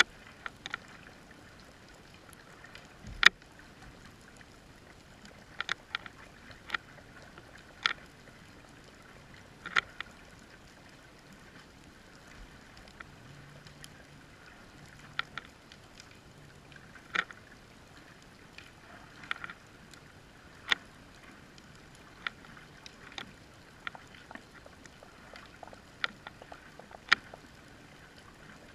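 Scattered sharp clicks and ticks, about one every second or two and uneven in strength, over a faint steady hiss.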